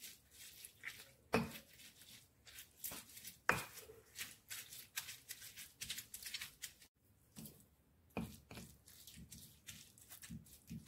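Stone pestle pounding and grinding boiled green chilies in a volcanic-stone mortar (Indonesian ulekan and cobek): irregular soft knocks, two or three a second, with two louder knocks about one and a half and three and a half seconds in.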